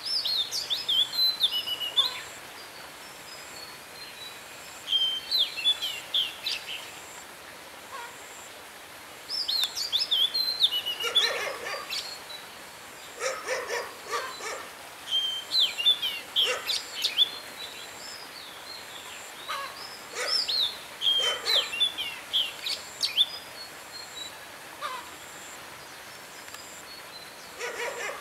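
Oriental magpie-robin singing: bouts of varied, high whistled phrases every few seconds, mixed with a few harsh rasping notes.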